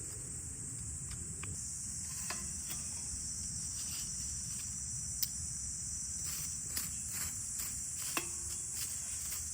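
Insects chirring steadily in a high, even band, with scattered sharp clicks and light knocks in the second half.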